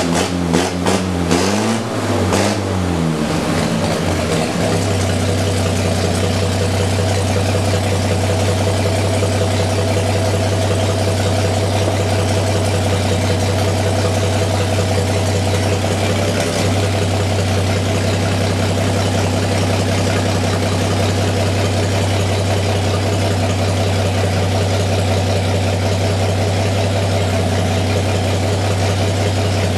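Rat rod truck's engine running through short dual straight pipes. It is blipped a few times at the start, then settles into a steady, loud idle.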